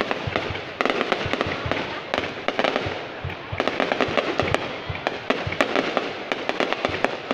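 Aerial fireworks going off in quick succession: a dense run of sharp pops and crackles, heaviest about a second in and again from about three and a half seconds in.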